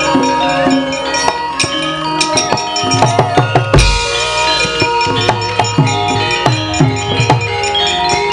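Javanese gamelan music: kendhang drum strokes over the ringing bronze metallophones, with one deep low stroke a little before the middle.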